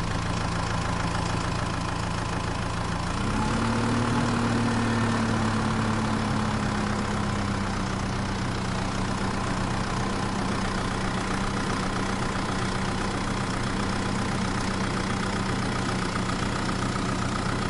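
Vehicle engine idling steadily, with a slight rise in pitch and level about three seconds in that settles back after a few seconds.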